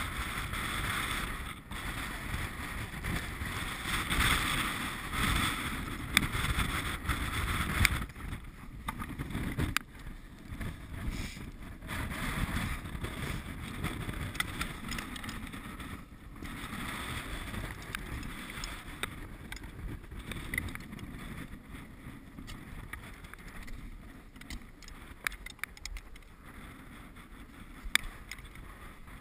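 Wind rumbling and buffeting on the camera's microphone, stronger in the first several seconds and then easing. Scattered sharp knocks and scrapes come from the climber's hands and gear on the rock.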